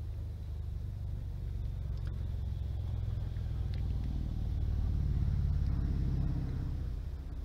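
Low rumble of a passing motor vehicle, swelling to its loudest about five seconds in and then fading.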